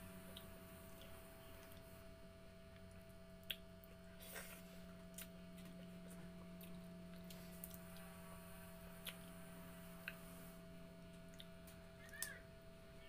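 Faint eating with the hands: quiet chewing and a few scattered small clicks and taps as fingers work rice and mussels on a wooden board, over a steady low hum.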